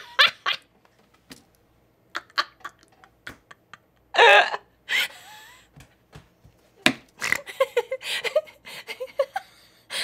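A woman laughing hard in scattered breathy bursts, loudest about four seconds in, then a quick run of short laughs near the end.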